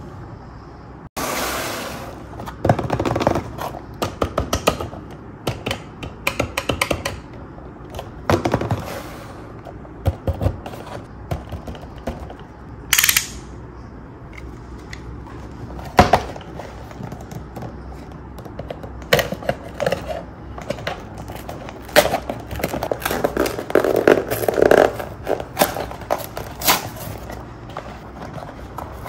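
A cardboard toy box being cut open with a utility knife and torn apart by hand, with its cardboard and plastic insert handled: an irregular run of clicks, scrapes and crackles.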